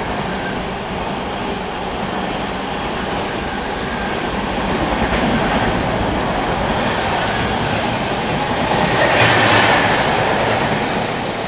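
Express train passing through the station at speed without stopping, its coaches rumbling and wheels clacking over the rails. The sound swells to its loudest near the end.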